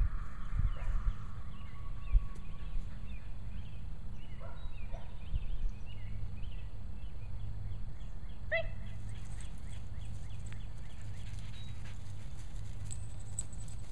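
Outdoor background sound: a steady low rumble with faint, repeated short chirps, a few soft thumps in the first two seconds and one sharper sound about eight and a half seconds in.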